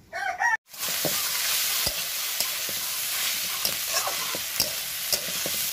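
Bitter gourd and potato strips sizzling in mustard oil in a metal karai, with a metal spatula stirring and scraping that clicks against the pan every half second or so. A short pitched call sounds at the very start, just before a sudden break.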